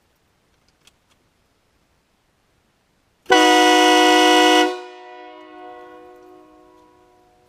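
Nathan Airchime K3LA three-chime train horn blasted once: a loud chord of several notes that starts abruptly, holds for about a second and a half and cuts off, then its echo fades away over about three seconds. A few faint clicks come about a second in, before the blast.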